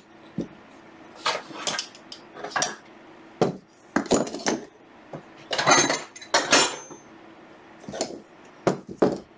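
Metal wrenches clinking and clanking as they are handled and set down on a table: a dozen or so short clanks and clicks, loudest around the middle.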